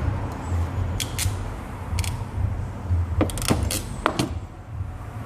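A handful of short, sharp clicks and knocks, as of small hard parts being handled, with most of them bunched together around the middle, over a low steady rumble.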